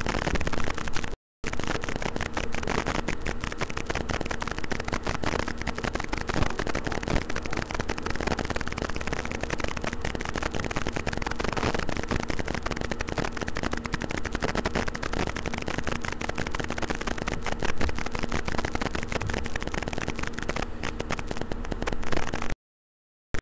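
Steady crackling static with a faint low hum under it. It cuts out to dead silence briefly about a second in and again near the end.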